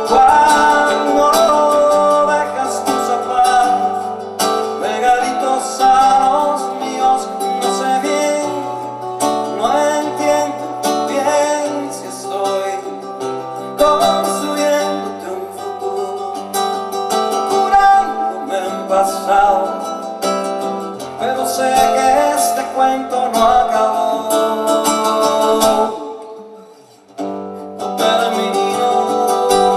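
A song played on acoustic guitar with other instruments, continuing after the sung refrain. It breaks off briefly near the end and then starts again.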